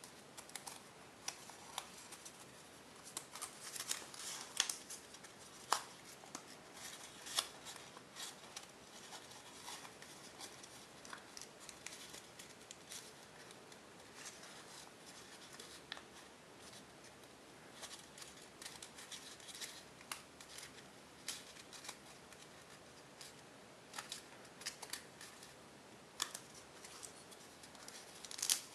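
Tissue-foil origami paper crackling and crinkling as it is folded and creased by hand, in scattered crisp crackles. They are thickest a few seconds in and again near the end.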